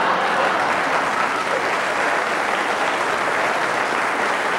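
Studio audience applauding steadily in an unbroken round of clapping, the applause that greets a comedian's punchline.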